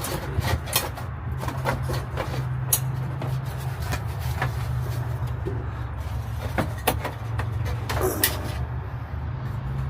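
Plastic dash air-vent ducts being pulled out of a truck cab: scattered clicks, knocks and a brief creak of plastic, over a steady low hum.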